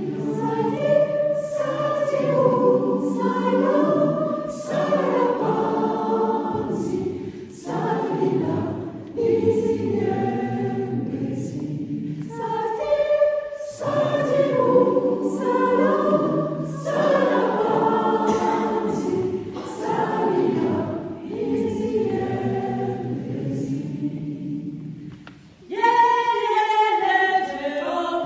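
Choir of mostly women's voices singing a song in parts, in phrases with short breaks. About 26 s in, after a brief dip, a brighter, higher phrase enters.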